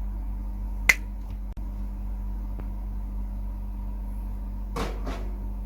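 Steady low electrical hum from idling band amplifiers, with one sharp click about a second in and a brief rustle near the end.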